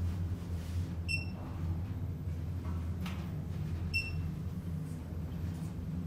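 Lift car travelling upward with a steady low machinery hum. A short, high electronic beep sounds about a second in and again about four seconds in.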